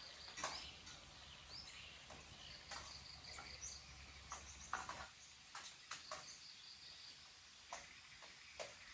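Faint outdoor ambience: small birds chirping in short, rising calls, with a high pulsed trill like an insect's coming and going in runs of about a second.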